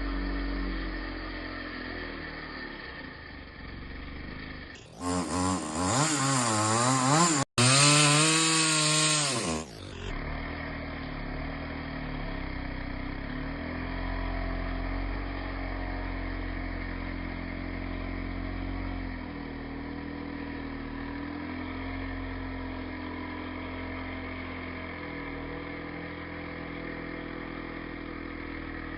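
Two-stroke chainsaw running. From about five to ten seconds in it is louder, its pitch dropping and rising as the engine revs and bogs under load in a cut. It then settles back to a steadier, quieter run.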